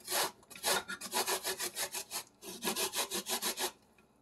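Fresh coconut meat rubbed by hand against a metal box grater: a fast run of short rasping strokes, several a second, that stops shortly before the end.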